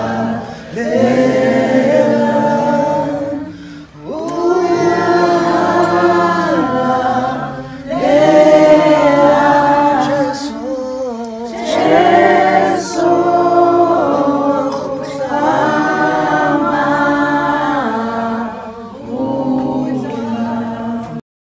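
A group of people singing together unaccompanied, in long phrases with short breaks between them. The singing cuts off abruptly just before the end.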